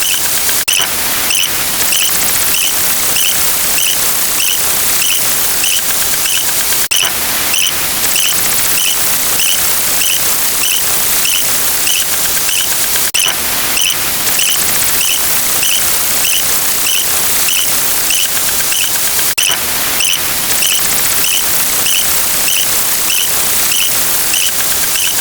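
A looped sound effect: a loud, steady hiss with short high squeaks repeating about three times every two seconds, broken by a sharp click about every six seconds where the loop restarts.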